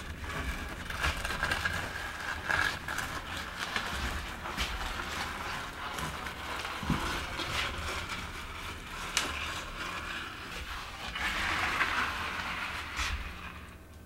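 Wooden screed board dragged across wet concrete in a countertop form to level it: a steady gritty scraping with small clicks, louder for a stretch near the end.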